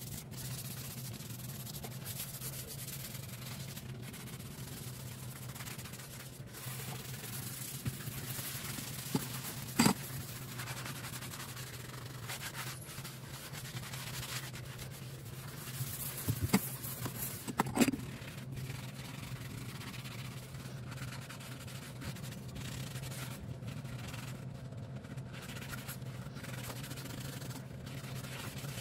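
Rubber-gloved hand scrubbing a soapy stainless-steel sink, a steady rubbing and scraping, with a few sharp knocks against the sink partway through.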